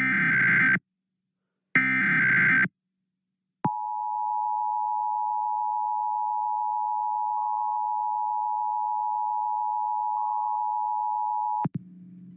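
Emergency Alert System header data bursts, two of them about a second apart, then the EAS two-tone attention signal held steady for about eight seconds before cutting off abruptly. A faint low hum follows.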